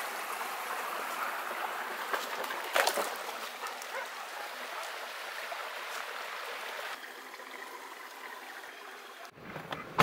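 Shallow creek flowing over stones, a steady rush of water, with a brief sharp noise about three seconds in. The water sound cuts off abruptly just before the end.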